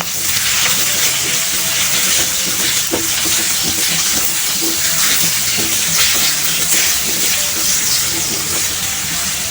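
Chopped tomatoes hitting hot oil with sautéed onion and garlic in a kawali, setting off a loud, steady sizzle that starts suddenly, with a few light knocks.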